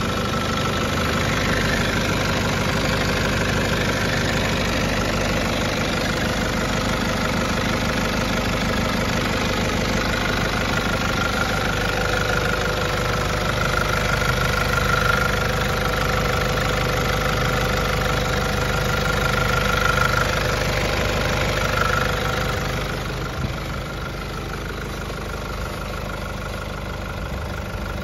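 Nissan Patrol Y61's 3.0-litre diesel engine idling steadily, with a steady whine over the engine note. It gets a little quieter near the end.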